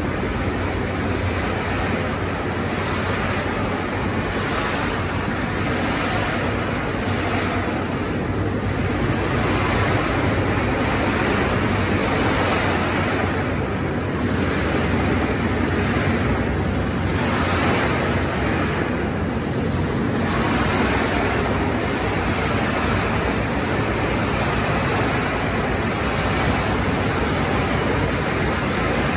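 Steady rushing din with a constant low hum inside an empty steel liquid-mud tank of an offshore supply vessel.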